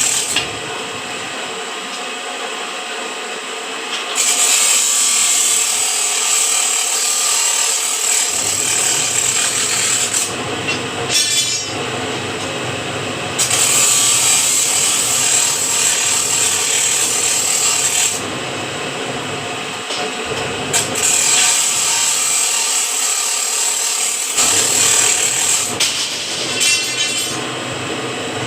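Band saw machine cutting through a square steel bar: a continuous high-pitched grinding hiss from the blade, which shifts in loudness and tone every several seconds.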